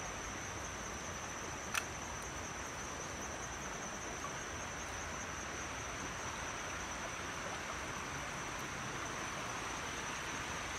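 Steady rush of a shallow creek running over a stone crossing, with a faint steady high-pitched whine above it and one brief click about two seconds in.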